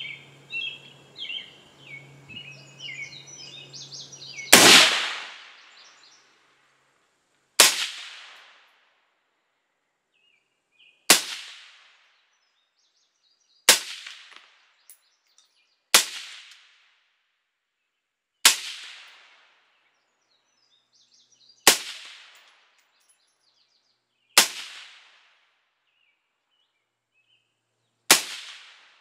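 Suppressed 5.56 AR-15 rifle firing nine slow single shots through a YHM Turbo 5.56 suppressor, one every two and a half to three and a half seconds, each with a short ringing tail. The first shot, about four and a half seconds in, is the loudest: the suppressor's first-round pop. Birds chirp before the first shot and faintly between the shots.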